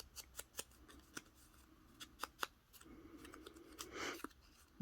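Paper craft pieces being handled and sorted at a tabletop: scattered light clicks and ticks, with a soft rustle of paper about four seconds in.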